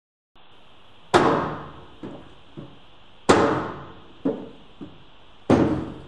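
A foot kicking an escalator's skirt panel: three loud bangs about two seconds apart, each followed by lighter knocks, over a steady hum. The skirt-panel safety switch is programmed not to respond to kicking, so the escalator does not stop.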